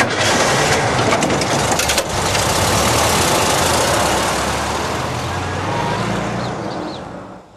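Car engine revving as an open-top car pulls away and drives off, loud at first and fading out near the end.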